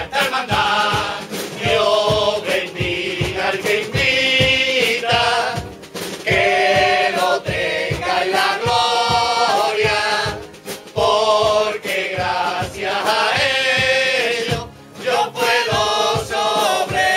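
A chirigota, a group of men singing together in Cádiz-carnival style, in sung phrases with short breaks, over strummed acoustic guitars and a steady beat.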